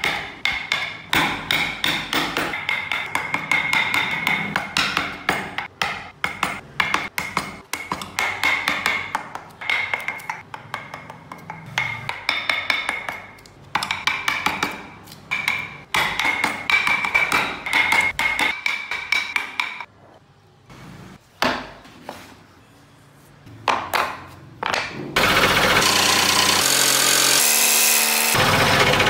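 Hand chisels and gouges cutting into wood in quick runs of sharp taps and scrapes, with pauses between. About 25 seconds in, a scroll saw starts, running steadily as it cuts a block of wood, and stops just before the end.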